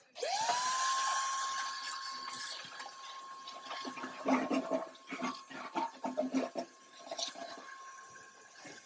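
Shop vacuum switching on: its motor spins up to a steady whine over a rushing hiss that slowly fades. Scattered knocks and rattles from the nozzle working over the work area.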